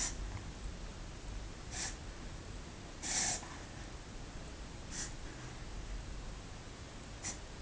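Reverse sneezing (a backward sneeze): short, sharp nasal intakes of breath, five of them about one and a half to two seconds apart. The one about three seconds in is the loudest and longest.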